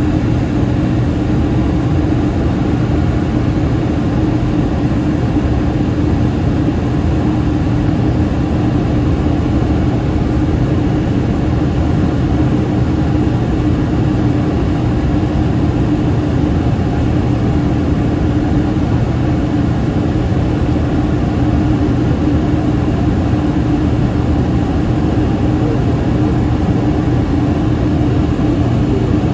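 Cabin noise inside a Yakovlev Yak-40: the steady drone of its three rear-mounted Ivchenko AI-25 turbofan engines and the airflow, with a constant humming tone, unchanging throughout.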